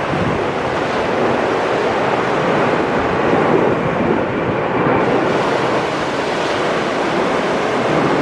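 Steady jet roar of an Airbus A340-300's four CFM56 engines at climb power as the airliner climbs away overhead after takeoff, with a little more hiss coming in about halfway through.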